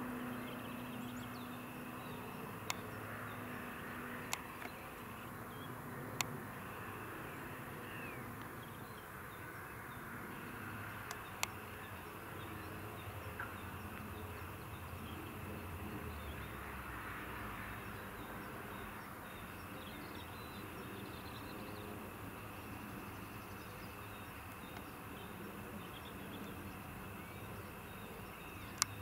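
Faint, distant, buzzy drone of a Diamond DA42NG Twin Star's two Austro AE300 diesel engines, throttled back for landing and rollout, under steady outdoor hiss. A few sharp clicks are scattered through, the loudest near the end.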